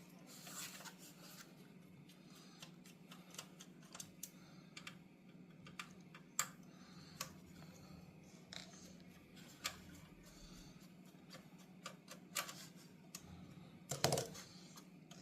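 Scattered light clicks and taps of a screwdriver and small plastic parts as screws are taken out of a car radio display's back housing, with a louder cluster of handling noise near the end. A faint steady hum runs underneath.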